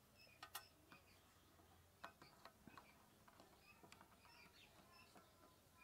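Near silence, with a few faint clicks and knocks from a DSLR camera and its clip-on shotgun microphone being handled and fitted together, and faint high bird chirps.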